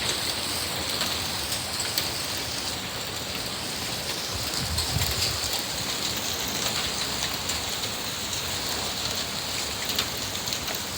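Steady heavy rain falling, with individual drops ticking close by. A brief low rumble comes about halfway through.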